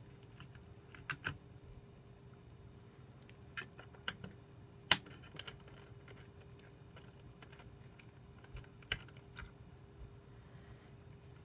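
Scattered light clicks and taps of small tools and parts being handled inside an opened 2010 Mac mini, irregular, with one sharper click about five seconds in. A faint steady hum runs underneath.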